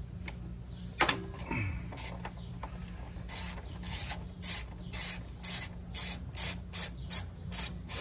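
Socket ratchet on a long extension turning a 6 mm hex (Allen) bit, backing out a motorcycle front brake caliper bolt. A single sharp click comes about a second in, then a steady run of ratcheting clicks, two or three a second, from about three seconds in.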